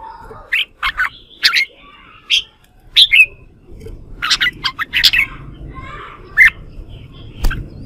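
Red-whiskered bulbul singing in short bursts of quick, clear notes, about half a dozen phrases with brief pauses between them.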